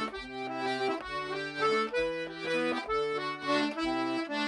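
Instrumental break between verses of an English folk song: a squeezebox plays the tune in sustained reedy notes over held bass notes.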